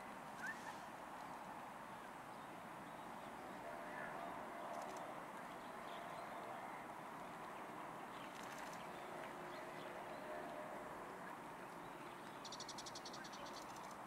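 Faint outdoor ambience by a lake, a steady background hiss with scattered distant bird calls, including a short chirp about half a second in. A rapid, high buzzing trill comes near the end.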